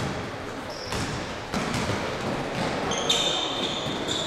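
Basketball bouncing on a gym floor as a player dribbles up the court, with several separate bounces, and short high sneaker squeaks from players running about three seconds in.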